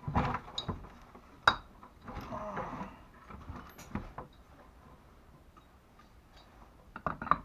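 Metal parts of a disassembled electric hoist clinking and clicking as the rotor shaft is worked on its splines: a sharp click about a second and a half in, a stretch of scraping around two seconds in, then quieter handling and a quick run of clicks near the end.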